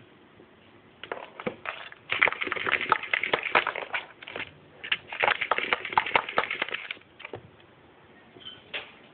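A Holland Lop rabbit digging, its claws scratching rapidly against a plastic pet bed. The scratching comes in two main bursts of a couple of seconds each, then a brief scrape near the end.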